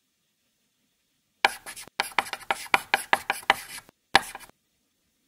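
A quick series of sharp taps or knocks, about five a second, starting about a second and a half in and stopping after two and a half seconds, followed by one short last cluster.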